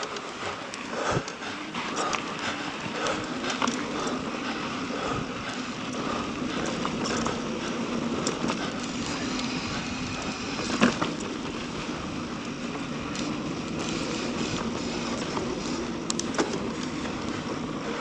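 Mountain bike riding down a dirt singletrack: steady tyre noise on the trail with the bike's frame and parts rattling over rough ground, and a sharper knock about eleven seconds in.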